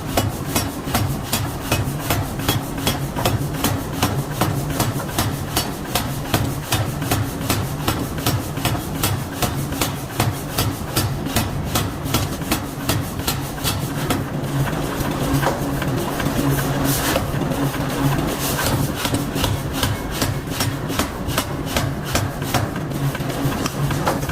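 Power hammer striking a hot steel bearing forging in a steady run of blows, about three a second, over a constant low machine hum.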